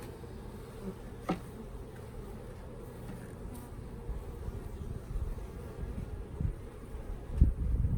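Honeybees buzzing in a steady low hum around an open hive, with a brief sliding tone about a second in as one passes close. Low thumps and rumbles build toward the end.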